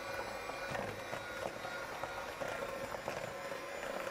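Krups electric hand mixer running steadily, its beaters briefly stirring flour into a butter-and-egg cake batter in a plastic bowl.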